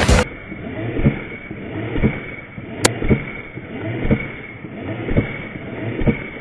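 A string of dull thumps, about two a second, with one sharp click about three seconds in. The recording sounds muffled and dull.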